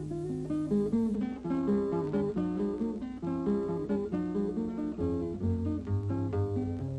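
Opening theme music: an acoustic guitar picks a quick melody of single notes over lower bass notes.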